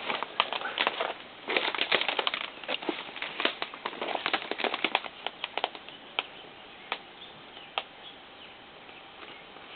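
Brush and twigs crackling and snapping underfoot as someone pushes through dense undergrowth. The snapping is busy for the first few seconds, then thins to a few isolated cracks.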